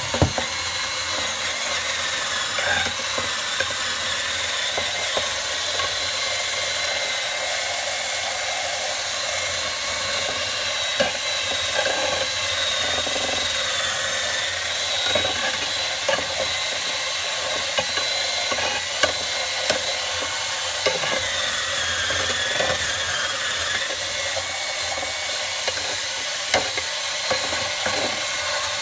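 Large wood bonfire burning: a steady hissing roar with scattered crackling pops.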